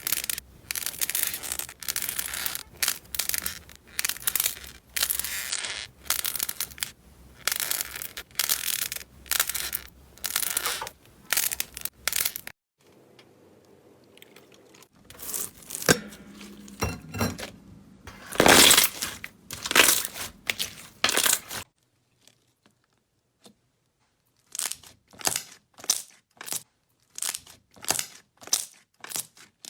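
Slime being handled by hand: a run of short, noisy squelches about one or two a second, in three separate stretches with brief near-silent pauses between them.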